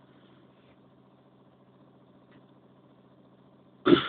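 Faint, steady low hum of the ship's engine. A sudden loud sound cuts in near the end.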